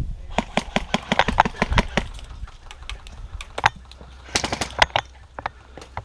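Airsoft guns firing: rapid runs of sharp shots in the first two seconds and again about four and a half seconds in, with single shots between.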